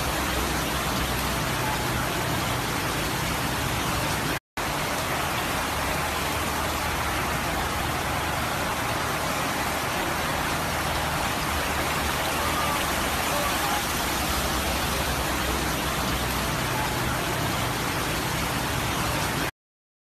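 Heavy rain falling steadily on a flooded road, with cars and motorbikes running and sloshing through the flood water underneath. The sound breaks off for a moment about four seconds in and stops abruptly near the end.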